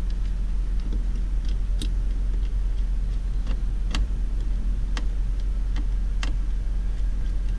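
Screwdriver turning a screw into a plastic car door panel at the door-pull recess: sparse, sharp clicks at irregular intervals, roughly one a second, over a steady low hum.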